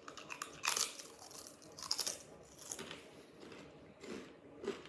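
Smith's Double Crunch potato chips being bitten and chewed close to the microphone: a run of irregular crisp crunches, loudest just under a second in and again around two seconds.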